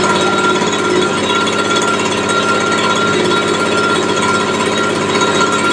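Petrol-engine leaf blower running steadily at full throttle.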